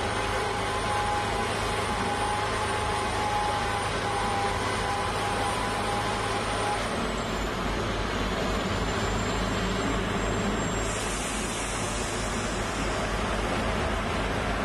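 Large tracked rotary piling rig running steadily, its diesel engine and hydraulic drive making a dense, even machinery noise. A faint high whine dips slightly in pitch about halfway through, and a hiss joins for a couple of seconds near the end.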